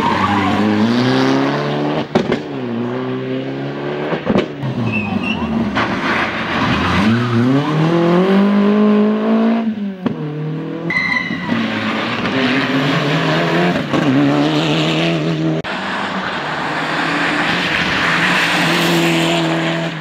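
Rally cars at full throttle, one after another: high-revving engines climbing and dropping in pitch through gear changes, with one long pull near the middle.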